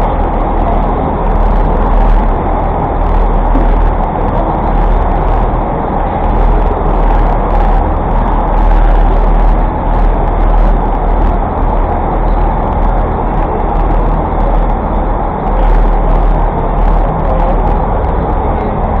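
Steady rumble of city traffic and road noise heard from a moving bicycle, with scattered small clicks.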